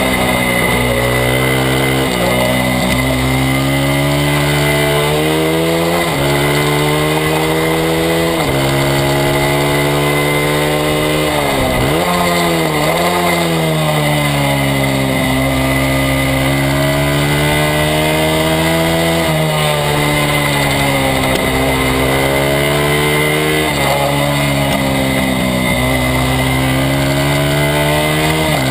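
Engine of a small Honda XR/CRF100 race bike, a single-cylinder four-stroke, heard close up from the bike itself while racing. It revs up through the gears with a rising pitch that drops sharply at each shift, over and over as it goes in and out of corners.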